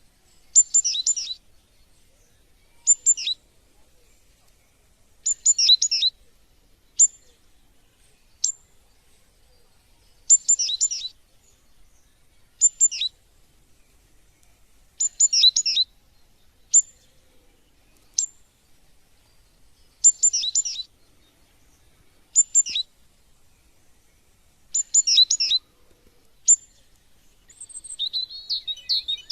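A small songbird singing short, repeated chirping phrases about every two to three seconds, with single thin high notes between them; a faster, denser twittering joins near the end.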